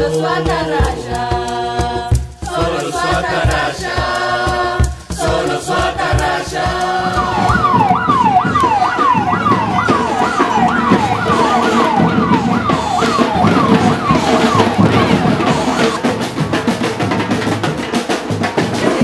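Choral singing with a steady beat, then from about seven seconds in a fire engine's siren in a fast yelp, its pitch sweeping up and down two to three times a second, over a noisy mix of music and crowd. The siren stops a few seconds before the end.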